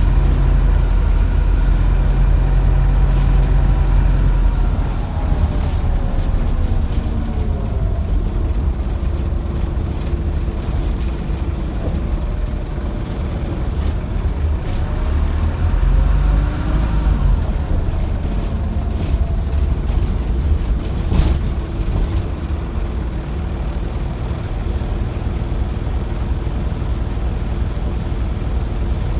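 Optare Solo single-deck bus's diesel engine running on the move, heard from on board as a heavy low rumble whose pitch rises and falls with acceleration and gear changes. The engine sounds horrible and ill. Faint high whistles come in the middle, and a single sharp knock comes about two-thirds of the way through.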